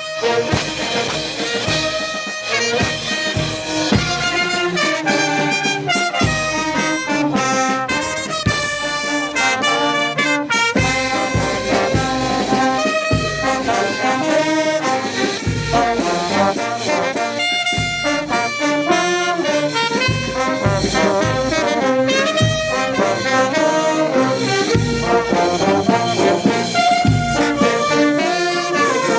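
Brass band playing a pasacalle, with trumpets carrying a busy melody over a steady drum beat.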